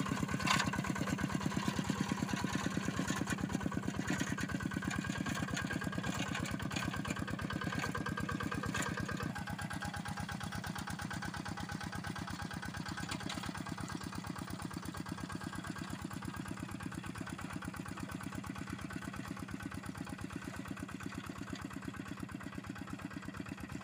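Quick G1000 two-wheel hand tractor's single-cylinder diesel engine chugging steadily as it works through deep mud, growing quieter after about nine seconds as it moves off.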